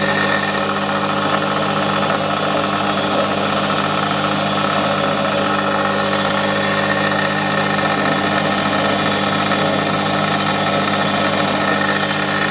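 Small bench metal lathe running at a steady speed, its motor and spindle drive giving an even hum and whine with several fixed tones as the collet chuck spins.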